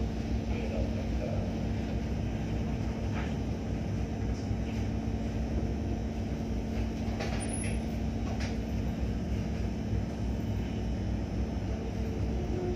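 A vessel's engine running steadily: a low rumble with a constant hum and a few faint knocks about halfway through.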